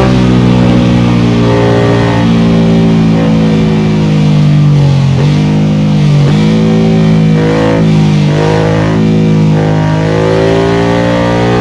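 Ducati Monster 1200's L-twin engine running steadily under way. Its note briefly dips and recovers a few times, about five, six and eight seconds in.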